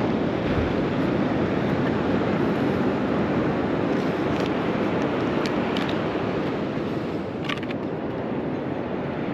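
Steady roar of ocean surf breaking on the beach, mixed with wind rushing over the microphone, with a few faint ticks about halfway through and again later.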